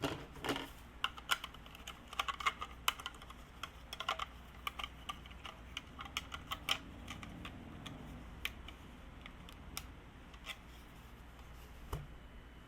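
A quick, irregular run of light clicks and taps that thins out after about ten seconds, with one short low knock near the end.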